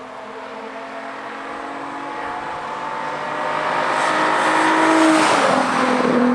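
Nissan 350Z's V6 through a Tomei dual exhaust, approaching and passing by at speed. The exhaust note grows steadily louder to a peak about five seconds in, then drops in pitch as the car goes past.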